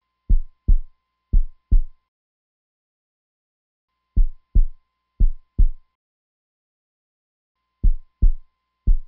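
Heartbeat sound effect: deep thumps in double beats, two double beats per group. Three groups come about four seconds apart, the last running on past the end. A faint thin tone sounds under each group.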